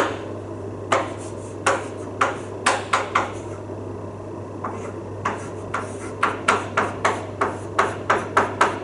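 Chalk knocking and scratching on a blackboard while writing: a run of short, sharp, irregular taps, with a pause near the middle and coming faster in the second half, over a steady low hum.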